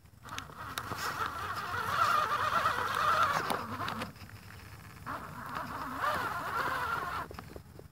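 Electric motor and drivetrain of an RC rock crawler whining in two stretches of throttle, with a short pause between, as the truck creeps over rocks.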